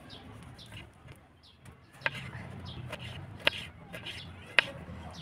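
Kitchen knife slicing through tomatoes on a wooden chopping board, the blade knocking sharply on the board three times, a little over a second apart.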